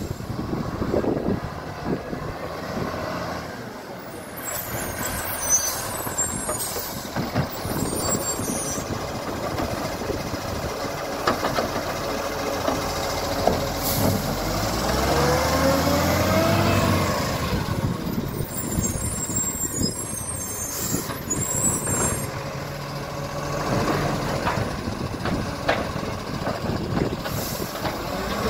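Side-loading garbage truck's diesel engine running, with air-brake hisses, then revving up in pitch as the hydraulic arm lifts a wheelie bin and tips it into the hopper, with knocks as the bin and rubbish hit; a second air-brake hiss follows as the truck moves off.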